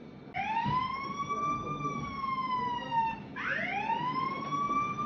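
A phone's "don't touch my phone" anti-theft alarm sounding a wailing siren, set off by someone handling the phone. It starts about half a second in as a single tone that rises, then slides slowly down, repeating in sweeps of about three seconds, twice.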